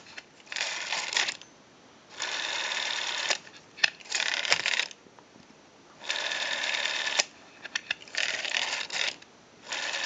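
ITT 500 telephone's rotary dial, out of its housing, being wound and released about six times: each time it whirs back for about a second under its speed governor and stops with a click. Short clicks come between the returns. The dial is sluggish and needs oiling.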